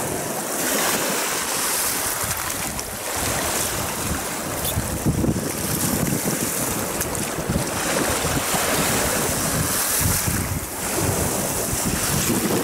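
Storm waves washing up a pebble shore, rising and falling in swells, with strong wind buffeting the microphone in gusts.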